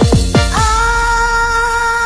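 Electronic backing music: two quick deep kick-drum hits that drop in pitch, then one long held note from about half a second in.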